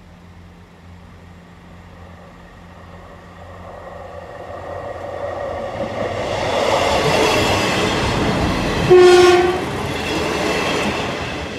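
Diesel multiple unit approaching over the level crossing, its engine and wheel noise building steadily over several seconds. About nine seconds in it gives a short horn blast, the loudest moment, and then begins to fade as it passes.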